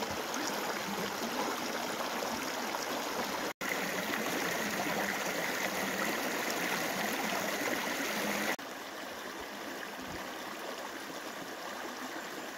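A small river flowing and splashing over rocks, a steady rush of water. The sound breaks off for an instant about three and a half seconds in and steps down quieter about eight and a half seconds in.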